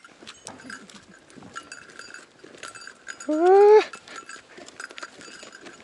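A single short call from a farm animal, about half a second long, rising in pitch and then held, about three seconds in. Faint scattered clicks run underneath it.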